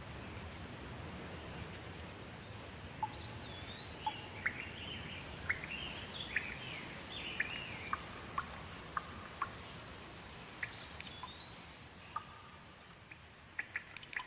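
Steady rain with a songbird calling in short whistled phrases that rise and fall, in two bouts, and scattered drops ticking, more of them near the end.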